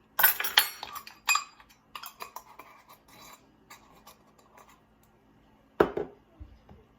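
Kitchen clatter of a measuring spoon and seasoning containers being handled: a cluster of sharp clinks in the first second or so, lighter scattered clicks after, and one thump near the end.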